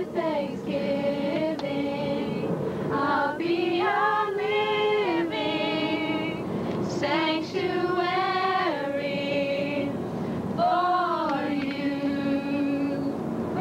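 Female voices singing a melody with long held notes.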